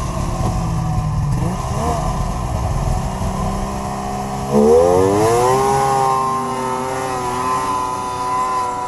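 Polaris XLT 600 three-cylinder two-stroke snowmobile engine running low, then hit hard about four and a half seconds in: it revs up with a rising note and holds a steady high pitch as the sled pulls away. It pulls clean, with no bog, now that its bad clutch is fixed.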